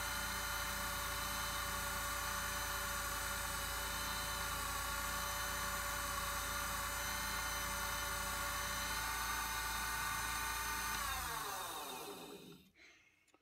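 Harbor Freight mini wood lathe running steadily with an even whine, spinning a pen blank while a friction polish is buffed on. About eleven seconds in it is switched off, and the whine falls in pitch as the lathe spins down to a stop.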